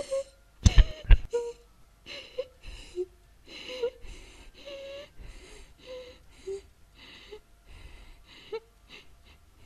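A person breathing in short, ragged gasps, about two a second, with two dull thumps about a second in.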